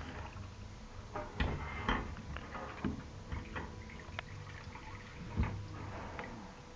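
Scattered light clicks and knocks at irregular intervals, over a faint steady hum.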